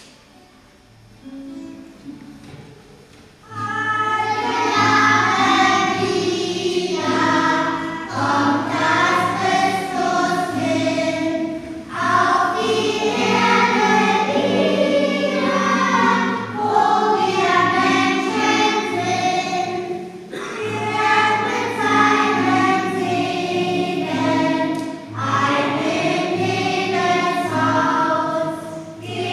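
A group of young children singing a song together, starting about three and a half seconds in and going on in phrases with short breaks between them.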